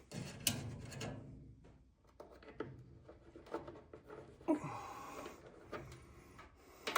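Scattered light clicks, knocks and scraping of metal parts being handled and fitted back into place on a furnace blower assembly, with several sharp clicks spread through it.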